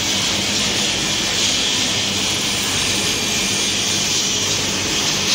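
Waste circuit board recycling line running: a loud, steady machine noise with a strong hiss and a low hum underneath.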